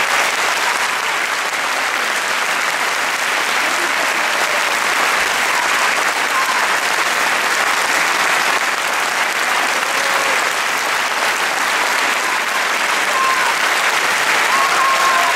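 Large audience applauding steadily and at length, with a few faint voices calling out over the clapping.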